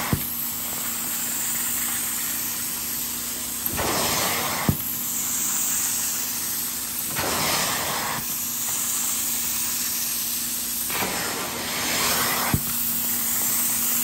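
Carpet-cleaning extractor's upholstery tool working over a fabric sofa cushion: a steady suction rush with a low motor hum. Three times, a louder hissing surge lasts about a second as a stroke is made, and a few sharp clicks are heard.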